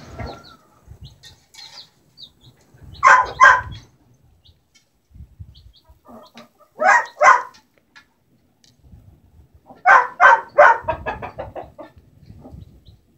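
Hen clucking: two loud clucks about three seconds in, two more about seven seconds in, then a quicker run of clucks around ten seconds that trails off.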